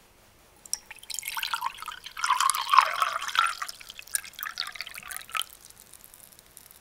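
Liquor poured into a glass tumbler over ice cubes: splashing liquid with the ice crackling and clicking. It starts about a second in, is fullest midway, and tapers off after about five seconds.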